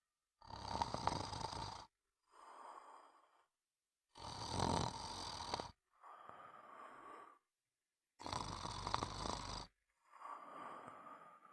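A person snoring in a slow, even rhythm: three loud, rattling snores about four seconds apart, each followed by a softer breath.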